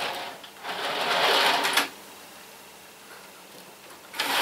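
Small electric motor of an OO gauge model locomotive whirring as it runs along the track, loud for about a second then fainter, growing loud again near the end.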